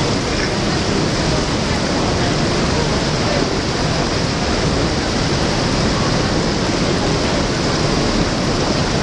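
Water gushing through an old canal lock gate and churning in the lock chamber: a steady rush of white water.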